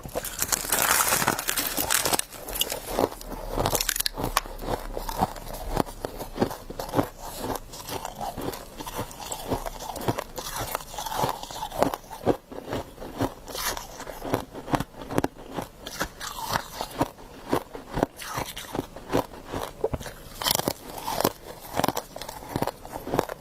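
A person chewing mouthfuls of frost close to the microphone: continuous crisp crunching and crackling of the ice crystals between the teeth, loudest in the first two seconds.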